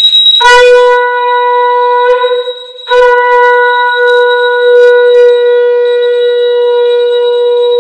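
Conch shell (shankh) blown loudly on one steady note, sounded to close a chapter of the Satyanarayan katha. The note falters for most of a second around the two-second mark, then comes back strongly and is held as a long blast.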